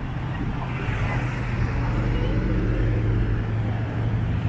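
Road traffic: a motor vehicle's engine running with a steady low hum.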